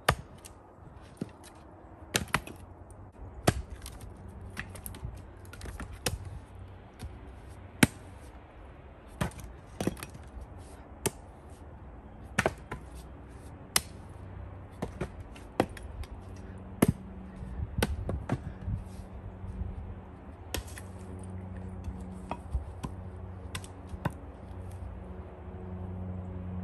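Axe blows into firewood: over a dozen sharp chopping strikes, irregularly spaced a second or two apart.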